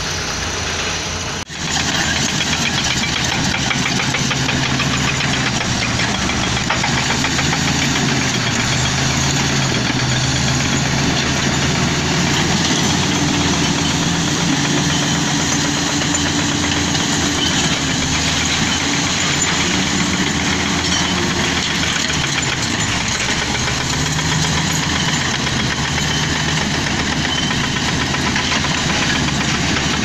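Heavy diesel engines of a Komatsu D85E-SS crawler bulldozer and a dump truck running at work, the engine note rising and falling with load. There is a brief break about a second and a half in.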